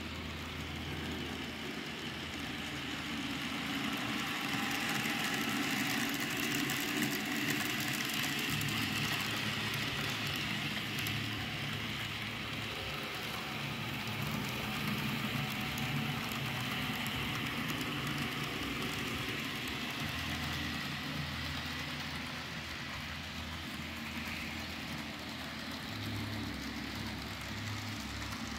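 Model train running on a layout: a steady whirr from the locomotive's small electric motor and the wheels rolling on the track, with a low hum that rises and falls every few seconds.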